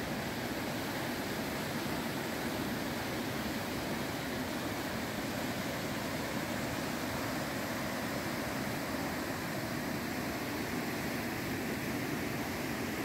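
Steady rushing of the swollen Seti River in flood, fast turbulent water running close by.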